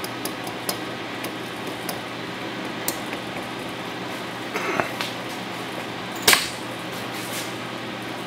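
Light metallic clicks and taps from hand-handling of the metal touch probe and milling-machine spindle, with a short scrape about four and a half seconds in and one sharp, louder click about six seconds in, over a steady background hiss.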